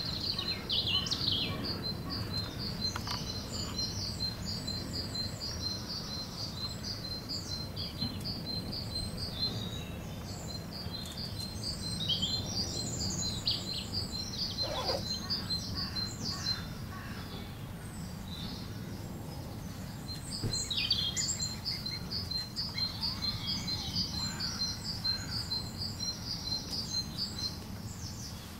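Birds chirping: a high chirp repeated quickly and evenly, about three a second, in two long runs with a pause between them, among other scattered bird calls over a low outdoor rumble.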